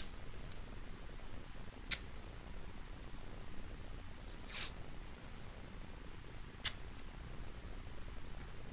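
White athletic tape being torn and pulled off the roll during foot taping: three short, sharp tearing sounds, about two, four and a half and nearly seven seconds in, the middle one a little longer, over a faint low hum.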